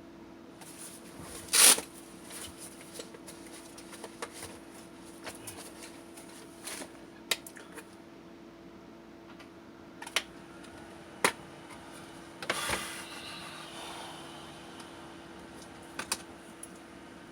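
Small tools and parts being handled on a workbench during a quadcopter frame build: scattered light clicks and taps, with a louder scrape about two seconds in and another around thirteen seconds. A steady faint hum runs underneath.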